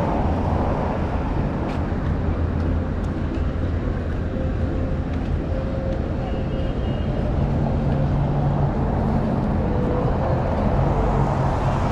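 Steady road traffic at a city intersection: cars and a bus running and passing as a continuous low rumble, with an engine drone standing out for a moment about two-thirds of the way through.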